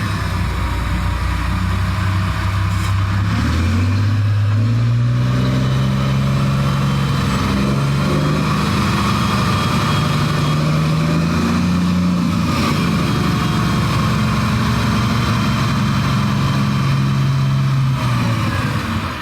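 Komatsu HD785 dump truck's diesel engine running hard, its pitch rising about four seconds in and shifting up and down several times before easing near the end.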